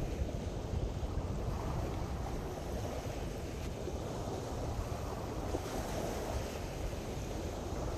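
Wind buffeting the microphone in a steady rumble, over the wash of small river waves lapping at a sandy bank.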